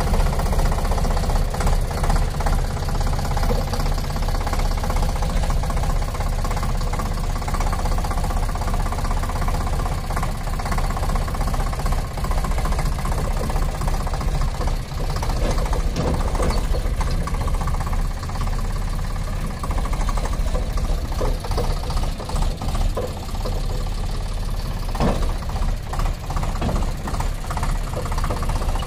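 Eicher 485 tractor's three-cylinder air-cooled diesel engine running steadily while pulling a loaded trolley, with a few sharp knocks in the middle and near the end.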